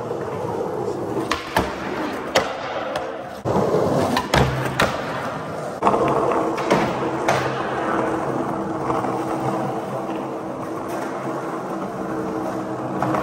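Skateboard wheels rolling on smooth concrete, with a series of sharp clacks from board pops and landings, most of them in the first half. The garage's hard walls make it ring.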